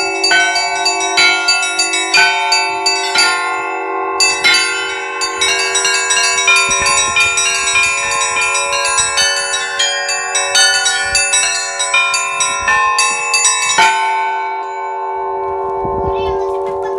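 Russian church bell ringing on a set of Litex-cast bells: rapid strikes on several higher bells over a lower bell that keeps sounding. The ringing stops about fourteen seconds in, with a last stroke left to ring out.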